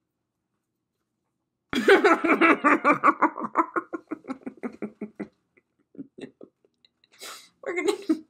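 A woman laughing hard: a sudden burst of rapid laughter starting about two seconds in, slowing and fading into breathy chuckles.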